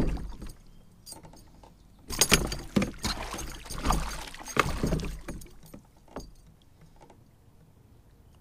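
Hooked northern pike splashing and thrashing at the side of a kayak as it is brought in by hand, with knocks and clatter against the boat, mostly in a run of bursts from about two to five and a half seconds in, then quieting.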